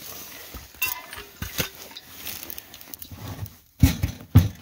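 A compressed sawdust briquette being shifted by hand inside a metal wood stove's firebox, scraping and clicking over the ash, with two louder knocks near the end.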